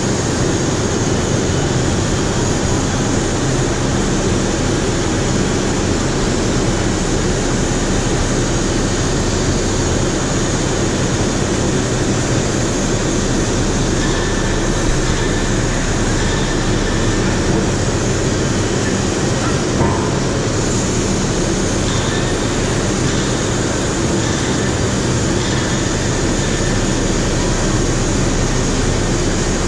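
Steady industrial machinery drone with a low hum, holding level without a break.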